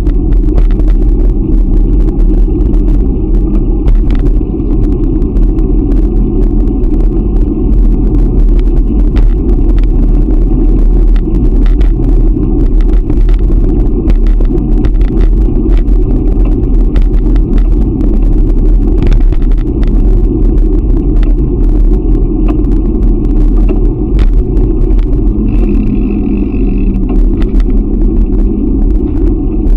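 Steady, loud wind rumble on the microphone of a camera riding along on a bicycle, with frequent small clicks throughout. A brief higher-pitched tone comes in near the end.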